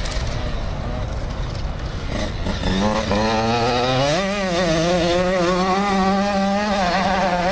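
Motocross dirt bike engine under hard throttle. A rough, noisy first few seconds give way about three seconds in to a clear, strong engine note that climbs in pitch around four seconds in and then holds high and steady as the bike runs up the hill.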